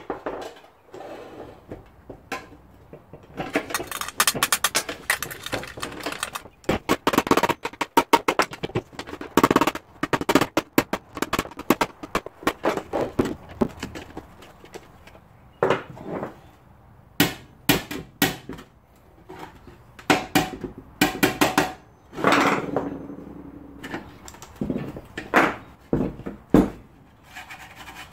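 Pliers clicking, scraping and knocking against the steel pan of a ride-on mower seat as the old cover is pried off its edge: a long run of irregular sharp metallic clicks, dense for several seconds and then scattered, some knocks ringing briefly.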